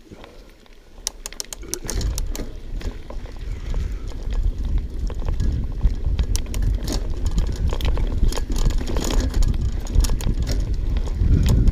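Mountain bike rolling fast down a rough dirt trail: wind rumbling on the helmet camera's microphone, with tyres on dirt and the chain and frame rattling and clicking over bumps. Quieter for the first second or two, then louder and rougher as the ride goes on.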